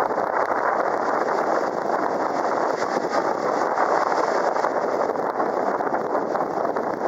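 Small open river cruise boat under way, a steady, unbroken rush of motor and water noise.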